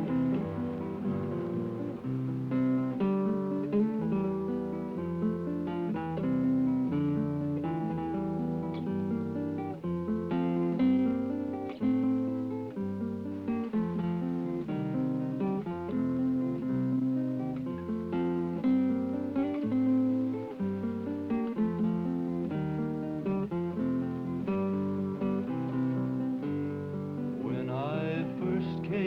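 Acoustic guitar music: a run of plucked notes over low bass notes.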